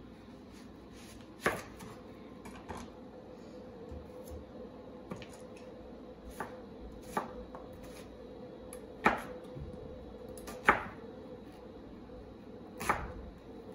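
Chef's knife slicing a red onion on a plastic cutting board, the blade knocking the board in slow, irregular single strokes, about eight in all.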